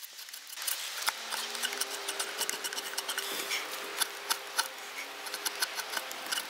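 Drawknife shaving sassafras wood: an irregular run of short, crisp ticks and scrapes as the blade bites into the grain.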